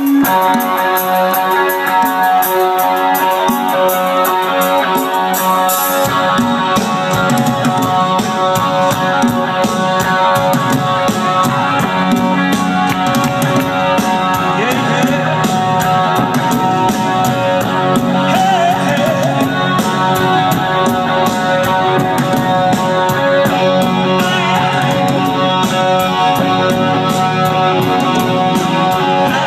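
Live rock band playing loud: sustained guitar tones at first, then the bass and drums come in about six seconds in with a steady beat.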